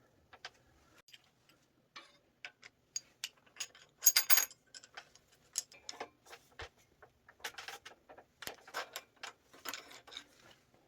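Irregular metallic clicks, ticks and clinks of hand tools and small metal bicycle parts being handled, with a louder, ringing clink about four seconds in and busier clattering near the end.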